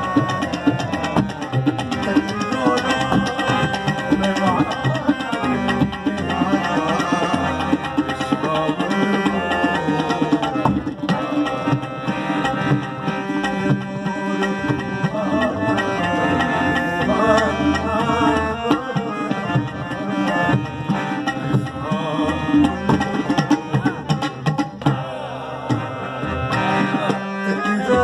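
Live harmonium and tabla music: the harmonium plays a sustained melody over a steady tabla rhythm, with a man's voice singing wavering melodic lines in places.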